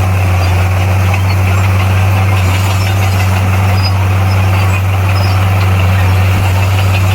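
Diesel engine of a heavy construction machine running steadily with an even low drone.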